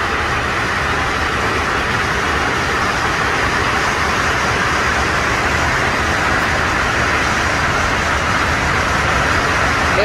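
Steady rushing noise of Burney Falls, a large waterfall pouring down a cliff face, even and unbroken throughout.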